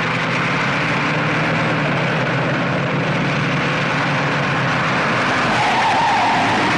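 A vehicle engine running steadily, a low hum under a hiss.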